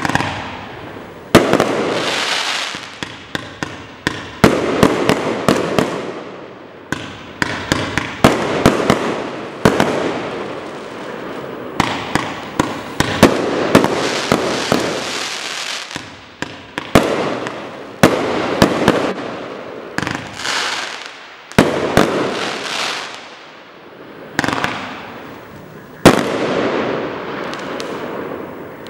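Kimbolton Regal Compound firework cake firing a long sequence of shots: sharp bangs, often several in quick succession, each followed by a fading rush of noise.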